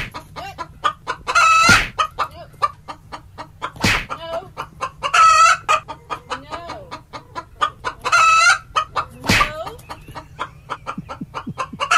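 A small, aggressive rooster clucking in a fast, steady run of short calls, with three longer, louder calls, the first about a second in, one around the middle and one near the end. Three loud sharp sounds stand out among them.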